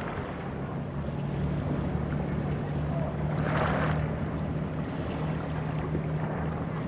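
Container ship passing across the water, its engine giving a steady low drone under a hiss of wind and water. A brief louder rush of noise comes about halfway through.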